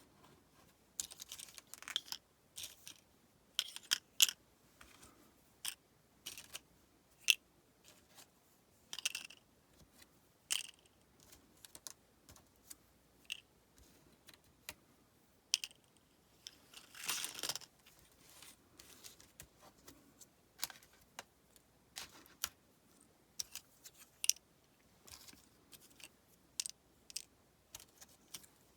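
Packaged sticker sheets being handled: scattered small clicks and crinkles, with a longer rustle about seventeen seconds in.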